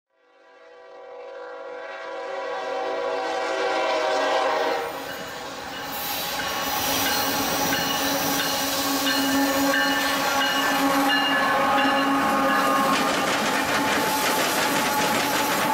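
Freight train led by a Norfolk Southern GE ES44AC diesel-electric locomotive in Lehigh Valley heritage paint: its multi-tone air horn blows as the sound fades in, ending about five seconds in. The locomotives' diesel engines then run steadily and the steel wheels clatter over the rail joints as the train passes close by.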